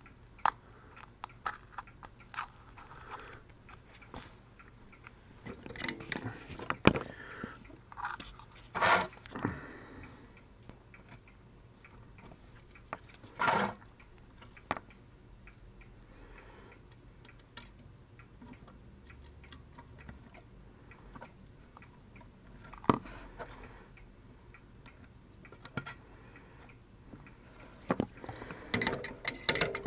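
Small intermittent clicks, taps and rustles of hands handling a circuit board and copper desoldering wick, with a couple of louder sharp clicks near the middle.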